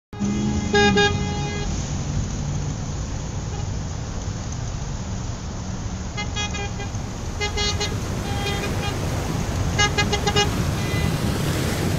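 Street traffic rumbling steadily, with car horns honking: one longer honk about a second in, then several short toots later on.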